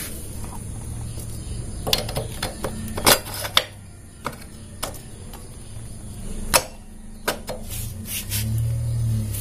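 Sharp metallic clicks and clinks, about ten at irregular spacing and the loudest about three seconds in, as a new 40-tooth rear sprocket is fitted onto a Honda Supra X 125's rear wheel hub and its nuts are handled. A steady low hum runs underneath.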